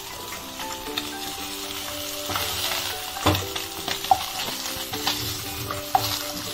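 Katla fish pieces sizzling in hot mustard oil in a non-stick kadai as they are lifted out with a wooden spatula, with a few sharp knocks of the spatula against the pan. Soft background music runs underneath.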